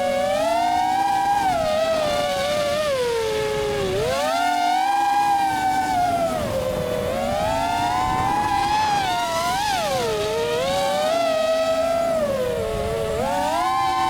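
FPV quadcopter's brushless motors whining at high speed. The pitch rises and falls every second or two as the throttle changes, with several close tones from the separate motors.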